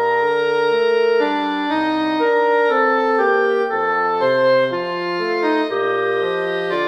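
Notation-software playback of a trio for two B-flat clarinets and bassoon. The clarinets play a slow melody in harmony while the bassoon runs underneath in quicker, even notes.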